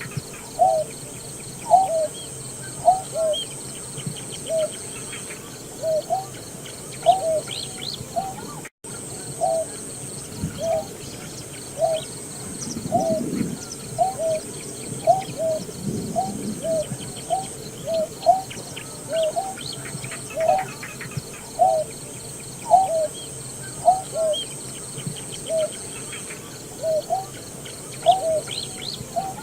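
Greater painted-snipe calling: a steady series of short, low hooting notes, a little faster than one a second, with fainter chirps of other birds above it.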